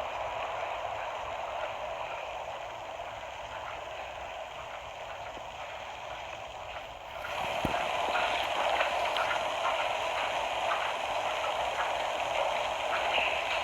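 Rain falling steadily in a typhoon downpour, a dense hiss with scattered drop ticks. It grows louder about seven seconds in.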